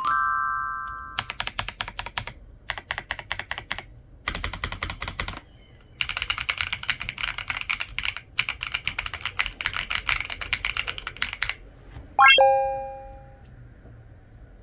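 Rapid typing on an SKN Qinglong 4.0 mechanical keyboard with Blaze Red V2 linear switches, in several bursts of quick keystrokes with short pauses between. A short electronic chime sounds at the start, and a rising chime sound effect about three-quarters of the way through.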